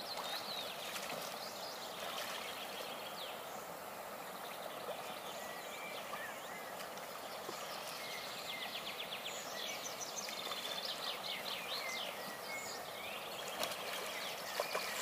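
Songbirds chirping and trilling over a steady rushing background noise, with the birdsong busier in the second half.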